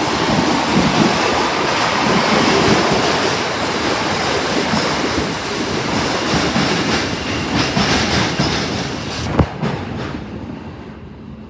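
Osaka Metro Tanimachi Line subway train running: a steady, loud rumble of wheels and running gear with clattering, and one sharp knock about nine seconds in. The noise then dies away near the end.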